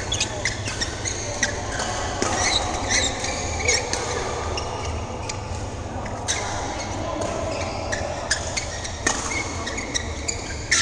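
Badminton rallies in a large echoing hall: sharp racket-on-shuttlecock hits at irregular intervals and short squeaks of shoes on the court floor, over a steady low hum and faint voices.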